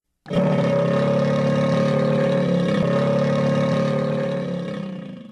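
Cartoon sound effect of a Loch Ness monster's call: one loud, steady drone that starts suddenly, holds for about five seconds with a fixed pitch, then fades and cuts off.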